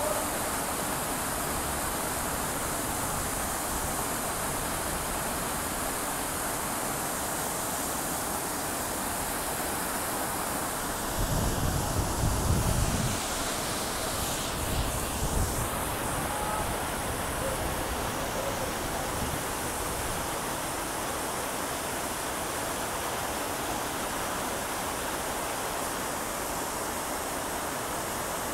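Large plaza fountain's many vertical water jets splashing back into the pool in a steady rush of water. About eleven seconds in, a low rumble rises over it for a couple of seconds.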